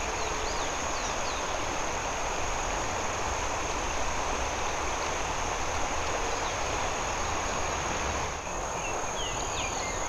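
Outdoor riverbank ambience: insects trill steadily in a high thin tone over an even hiss, with a few faint bird chirps near the start and again near the end.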